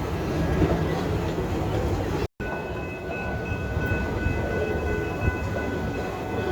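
Passenger excursion train running on its track, heard from on board: a steady rumble and rattle of the car. Just over two seconds in the sound cuts out completely for an instant, and after it faint steady high tones sit over the rumble.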